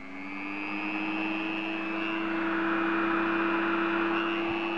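Handheld rotary tool with a cut-off wheel spinning up to speed, then running with a steady high whine.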